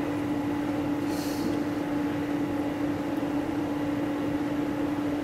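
A steady electrical hum at one low pitch over a light hiss, from the radio test bench.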